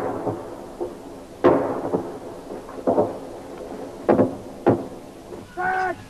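Distant battlefield firing: several sharp bangs, each echoing away over about half a second, and a short shout from a man near the end.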